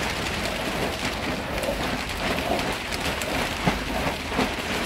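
Heavy rain falling steadily, a dense hiss made of many small separate drop hits, over a steady low rumble.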